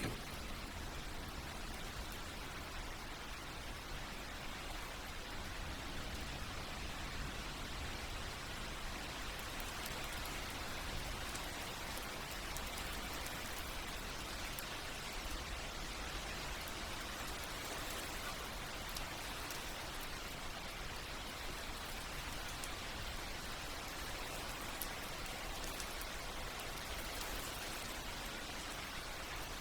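Steady rain, with drops falling on leaves, tree bark and the forest floor.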